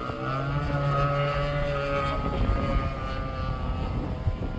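Small petrol engine of a 1/5-scale 22cc RC trainer plane in flight, a steady propeller drone that falls slightly in pitch over the first two seconds, then fades, with wind rumble on the microphone.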